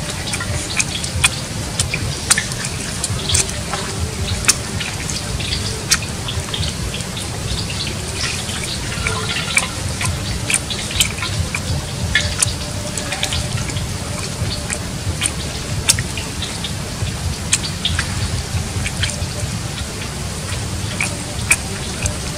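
A person eating cooked water snake: wet chewing and lip smacks with irregular sharp clicks as the meat is bitten and torn, over a steady low rumble.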